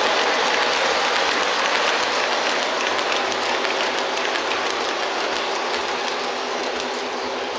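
O-gauge three-rail model train's passenger cars rolling past on the track: a steady rolling rumble with many small clicks from the wheels, slowly getting quieter as the train moves away.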